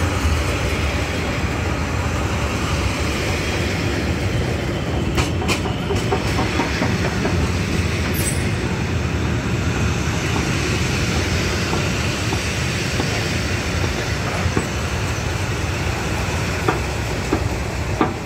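Train of gravel hopper wagons rolling past on the rails: a steady rumble of steel wheels with a few sharp clacks about five seconds in and again near the end.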